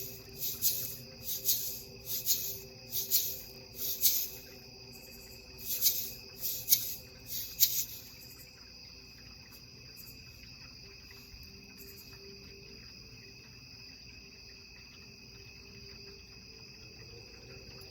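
A hand-shaken percussion instrument, a shaker or rattle-type sound-bath instrument, sounding in about a dozen short, bright strokes over the first eight seconds and then stopping. Steady ringing tones, high and low, hold on under it throughout.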